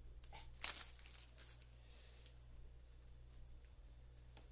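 Protective plastic film being peeled off a monitor's glossy bezel: one short crackling rip a little over half a second in, with a few fainter rustles and crinkles of the plastic around it.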